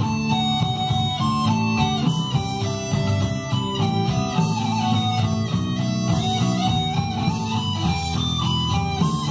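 Electric guitar playing a melodic lead line of held notes stepping up and down, with a low bass part underneath.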